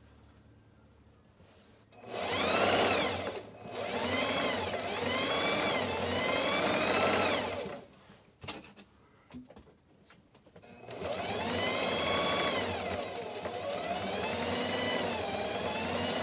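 Singer electric sewing machine stitching fabric in two runs: it starts about two seconds in and stops before the middle, then starts again about three seconds later. The motor whine rises and falls in pitch as the speed changes, with a few light clicks in the pause between runs.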